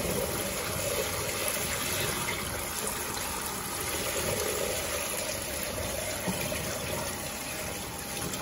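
A bucket of dirty water being poured out steadily, splashing onto a concrete floor and gushing through a trench drain grate.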